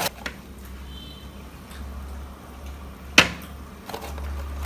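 A low steady hum, with one sharp knock about three seconds in, as the plastic box grater bumps against the plate between strokes of grating beetroot.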